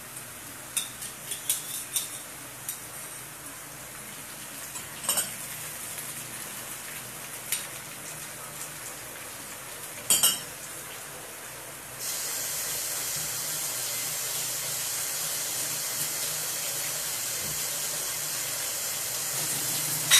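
Sliced onions frying in oil in a non-stick pan, giving a steady sizzle, with a few light clicks and taps of a small saucer against the pan as chilli paste is scraped in. About twelve seconds in, the sizzle suddenly becomes louder and hissier and stays steady.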